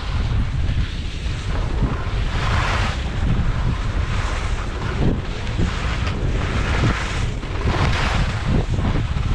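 Wind buffeting the microphone: a steady low rumble with a rushing hiss that swells and eases.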